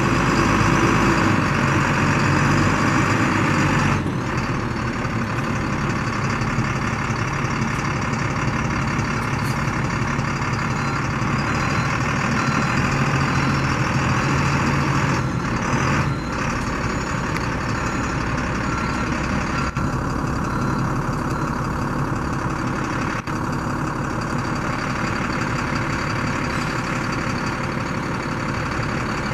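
International 4300 truck's diesel engine running steadily as the truck moves slowly. A faint repeated beeping comes in for a few seconds near the middle.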